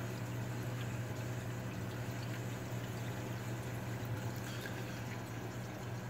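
Steady water running and splashing in a saltwater aquarium sump, with a constant low hum from the pump equipment.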